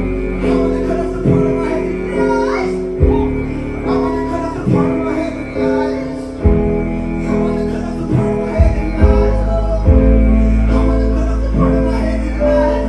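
Live band music: sustained keyboard chords over a deep, steady bass with a few heavy beats, and a male vocalist singing into a handheld microphone.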